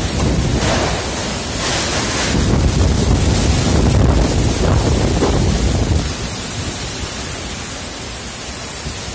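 Cyclone-force wind blowing in strong gusts and buffeting the microphone with a heavy rumble. The gusts are strongest through the middle and ease somewhat near the end.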